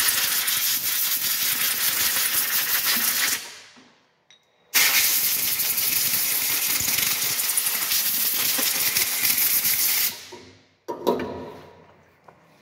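Compressed-air blow gun blasting chips off a freshly machined part: two long hisses, the first about three seconds and the second about five, each starting suddenly and tailing off. A short knock about a second after the second blast.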